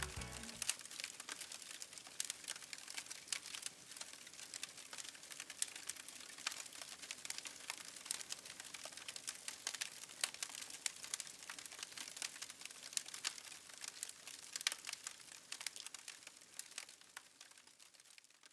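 Wood fire crackling in a steel fire pit: irregular sharp snaps over a faint hiss, fading out near the end. A song's last notes stop in the first second.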